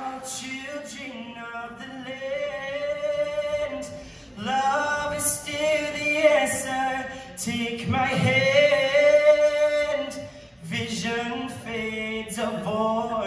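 Mixed-voice show choir singing in harmony through stage microphones, in sung phrases with brief breaks about four and ten and a half seconds in.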